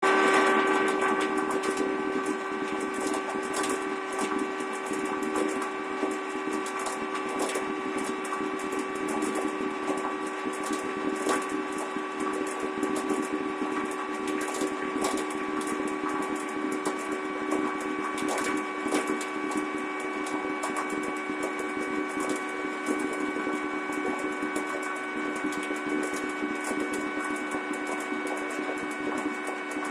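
Homemade motor-driven pulley-and-belt machine running steadily: a constant hum-whine of several pitches with a fast, irregular ticking and rattling over it.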